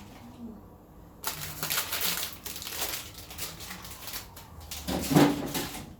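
Plastic bags of meat rustling and crinkling as they are handled and packed into a fridge, with a louder knock about five seconds in.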